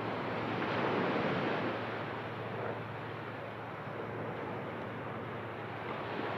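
Ocean surf washing on a beach: a steady rushing noise that swells about a second in and then eases.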